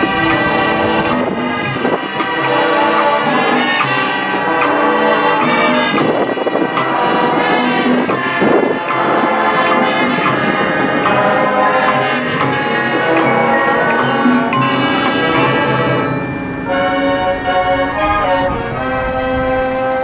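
High school band playing, brass (trumpets and trombones) carrying held chords over frequent percussion hits.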